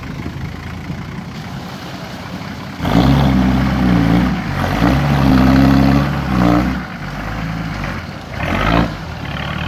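Toyota Land Cruiser pickup's engine pulling through deep mud: running steadily, then revved hard from about three seconds in for several seconds with the pitch rising and falling, easing off, and a short burst of revs near the end.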